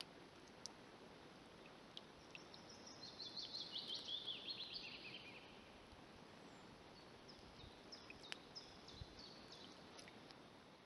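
A songbird singing a descending run of quick high notes for about three seconds, starting about two seconds in, followed near the end by fainter, shorter phrases. Underneath is a faint steady hiss with a few soft ticks.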